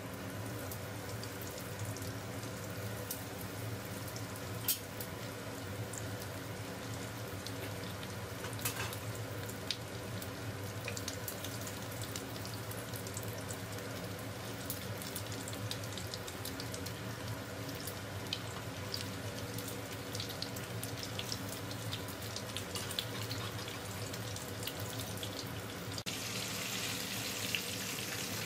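Cornflake-crumbed tiger prawns deep-frying in hot oil in a kadai: a steady sizzle full of small pops and crackles, turning louder and brighter near the end. A steady low hum runs underneath.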